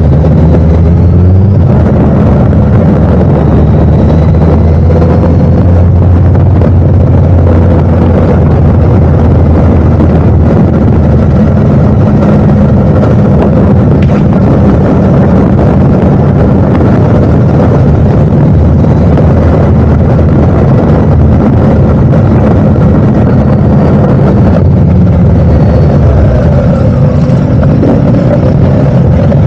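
Vehicle engine running steadily at high volume while driving, with a rising whine near the end as it speeds up.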